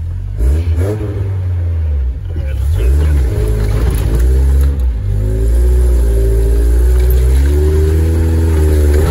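Pickup truck engine heard from inside the cab, labouring and revving unevenly as the truck crawls up a steep rocky washout. The pitch rises and falls with the throttle over a deep steady rumble.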